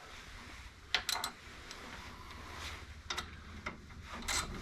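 A few separate sharp metallic clicks and light knocks from hands and tools working on the skid steer's drive parts. Near the end the clicks come closer together.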